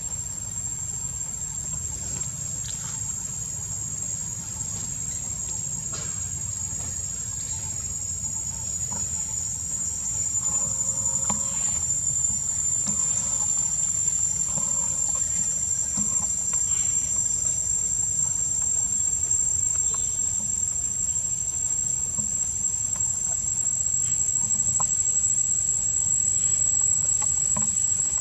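Insects droning in one steady high-pitched tone that grows louder about a third of the way through, over a constant low rumble.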